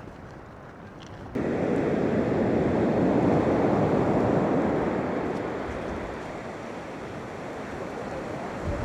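Heavy ocean surf breaking and washing up a beach, with wind on the microphone. It jumps up sharply about a second and a half in, then slowly eases.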